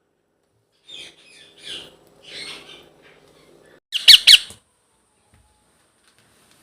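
Young Indian ringneck parakeet calling: a few softer squawks about a second in, then a loud burst of sharp squawks about four seconds in.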